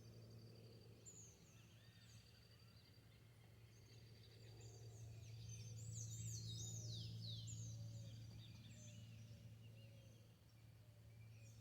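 Faint birdsong: several birds chirping, busiest around the middle, over a steady low hum.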